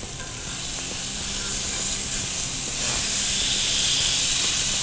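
Flap steak searing on a very hot griddle greased with lard: a steady sizzling hiss that grows a little louder over the first two seconds. The meat is at the point of juice rising on its top, the sign that the first side has its crust and is ready to flip.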